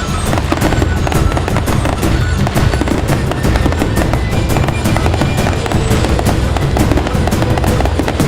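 Fireworks and firecrackers going off in a dense, continuous crackle of rapid pops, over loud music.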